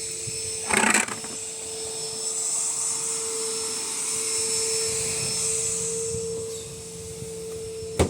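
Electrolux LTC 10 top-load washing machine running with a steady, drill-like whine from its transmission (mechanism), with a brief louder rattle about a second in and a click near the end. The noise comes from inside the transmission, which the owner thinks could be a bearing spinning loose in the base.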